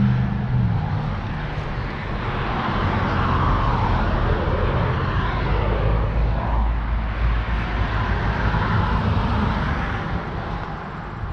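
A passing vehicle: a rush of noise that swells over a few seconds and fades near the end, over a steady low rumble.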